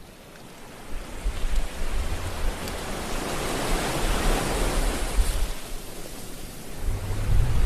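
Sea surf: waves breaking and washing in, a steady rush that fades in from silence and swells and ebbs, with a low rumble underneath.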